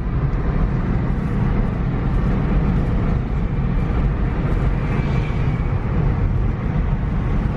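Steady road and engine noise of a vehicle driving along.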